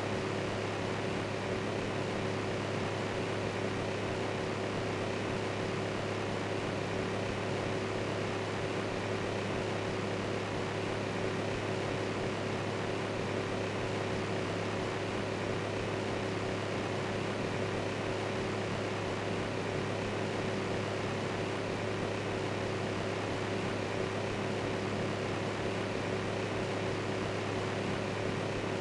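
A fan running steadily: an even hiss over a low, unchanging hum.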